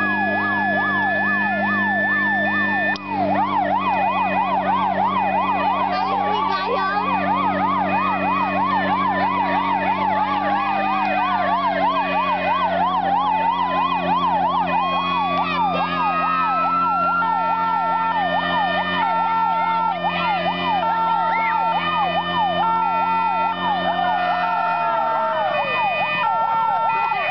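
Several emergency sirens sounding at once, overlapping fast yelping sweeps and slow wails with some steady on-off tones. Under them a steady engine drone runs, then falls in pitch and dies away near the end.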